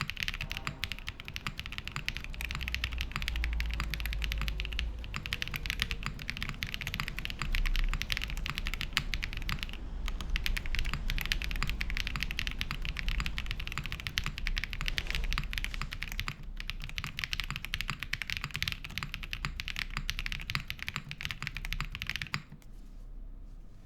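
Fast, continuous typing on a top-mount custom mechanical keyboard with lubed KTT Darling linear switches in an aluminium plate and PBT keycaps, with key bottom-outs and returns clattering together; the typing stops near the end.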